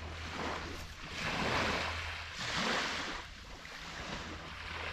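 Small waves washing onto a sandy shore, a rushing hiss that swells and fades a few times.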